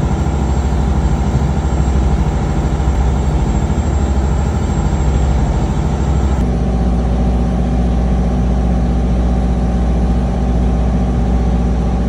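A lobster boat's engine running with a steady, loud, low drone. Its note shifts slightly a little over halfway through.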